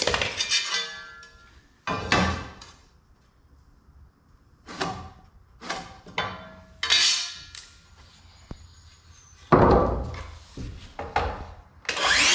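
Knocks and clatters of 2x4 lumber, a tape measure and a metal speed square being handled on a concrete floor, the loudest knock about ten seconds in. Near the end a circular saw starts up, its whine rising and then running steady as it begins cutting a 2x4.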